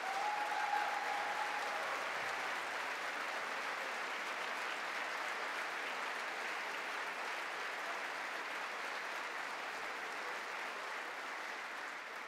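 A large crowd of House members standing and applauding steadily. The clapping begins to die away near the end.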